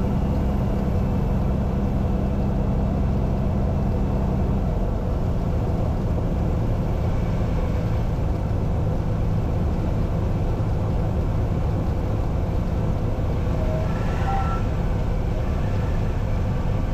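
Cessna 182's carbureted Continental O-470 engine and propeller running steadily at approach power, heard from inside the cockpit; its low note changes slightly about five seconds in.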